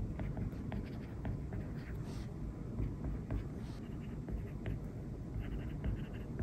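Stylus tapping and scratching on a tablet's glass screen during handwriting: a scatter of light, irregular clicks over a low room hum.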